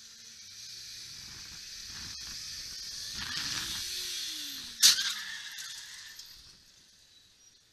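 A car driving, its road noise slowly rising, then one sharp knock about five seconds in that fits a low-speed collision with a car cutting across close in front.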